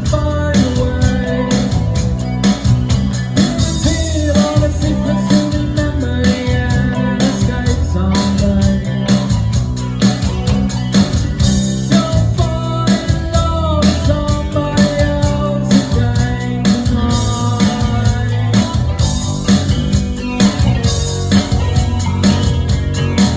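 Rock music with electric guitar, bass and drums keeping a steady beat, with a voice that sounds sung.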